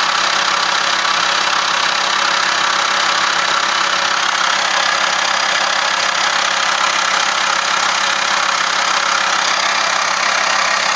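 Van engine idling with the air conditioning switched on, with a steady clattering that comes with the aircon running.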